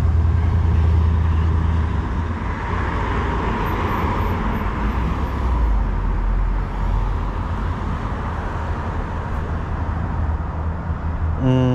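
Street traffic passing: a steady rumble of cars going by, swelling a little a few seconds in as a car passes.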